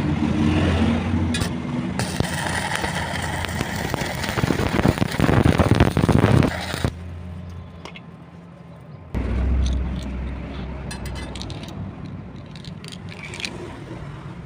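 Electric arc welding: the arc crackles over a low electrical hum for about five seconds, getting louder, then cuts off suddenly. A couple of seconds later a low hum starts abruptly and slowly fades, with a few scattered clicks.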